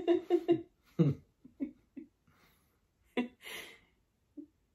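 A person laughing. The laugh trails off about half a second in and gives way to a few short, breathy chuckles and exhalations.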